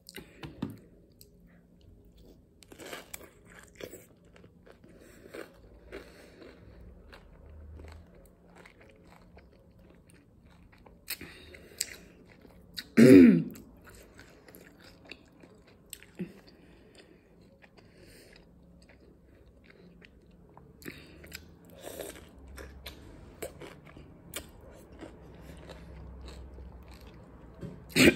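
Close-up chewing and crunching of a chamoy pickle stuffed with Takis chips and Fruit Gushers, with many small crisp crunches and wet mouth sounds. About halfway through there is one short, louder closed-mouth 'mm' of approval.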